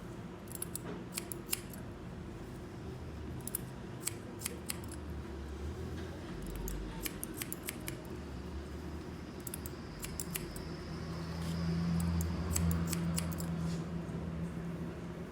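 Scissors snipping hair in short runs of sharp clicks every couple of seconds, with a low steady hum behind.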